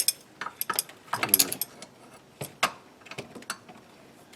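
Metal power steering hose and its fittings clinking and knocking against engine parts as it is fed into place, a string of irregular clicks and knocks.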